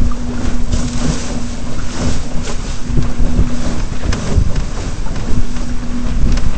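Wind buffeting the microphone and water rushing and splashing along the hull of a Flying Dutchman dinghy under sail, with a steady low hum that drops out and returns.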